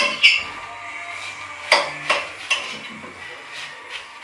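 A kitchen knife cutting raw pumpkin into strips on a cutting board, with several sharp knocks of the blade and pumpkin pieces against the board.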